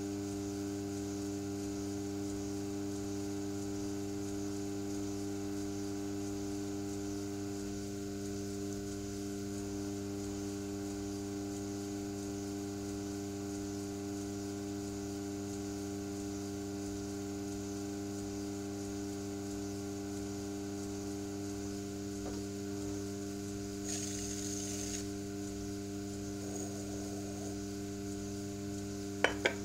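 Electric potter's wheel running with a steady, even electrical hum while a clay spout is shaped on it. Two sharp clicks sound just before the end.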